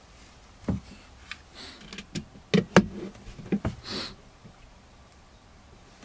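Handling knocks and clicks as an ammeter/voltmeter panel is fitted against the laminated wall and its screws are started with a screwdriver: a handful of sharp knocks between about one and four seconds in, the loudest near the middle, with a little rubbing between them.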